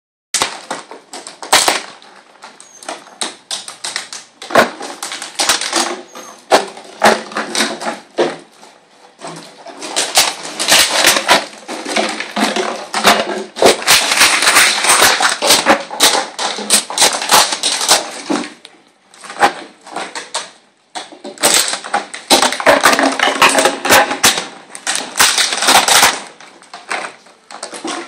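Texas Heeler puppies playing on a concrete floor: an irregular clatter of claws scrabbling and chew bones and a plastic tub being knocked about. The clatter thins out for a moment about two-thirds of the way through.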